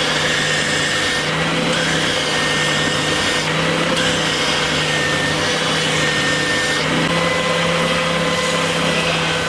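Stationary belt sander running steadily while a wooden door offcut is pressed against the moving belt to shape it.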